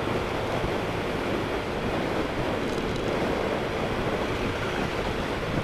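Steady wind rush on the microphone of a Honda Vario scooter moving along an open road, with the scooter's engine and tyre noise underneath.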